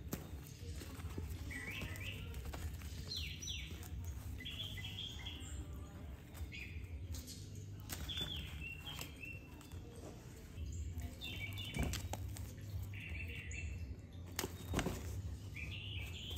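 Short bird-like chirps repeating about every second, over a low steady hum, with a few brief rustles from the fabric play tunnel as the cat moves in it.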